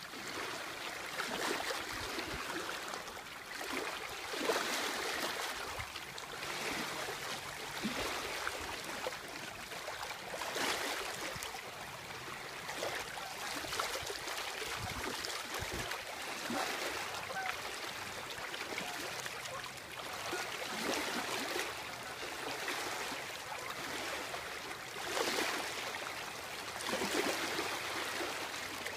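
Small river waves lapping and splashing close by, in uneven surges every few seconds.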